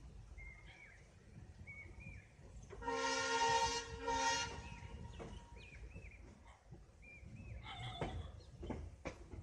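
Locomotive horn of an Indian passenger train sounding for about two seconds over the low rumble of the moving train, with wheels clicking over rail joints near the end.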